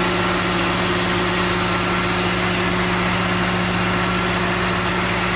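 Steady, unchanging machine hum with several constant low tones and a faint higher whine, like an engine idling in a truck repair shop.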